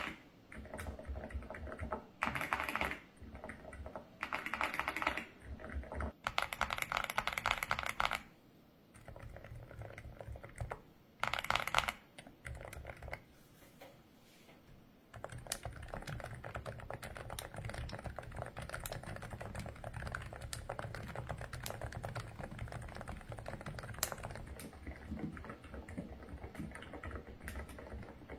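Typing on a mechanical keyboard fitted with Black Cat × Yushu 'Raspberry Chocolate Cheese' silent switches: soft, muffled keystrokes. Several quick bursts of typing come in the first eight seconds, then a quieter pause, then steady typing from about halfway through.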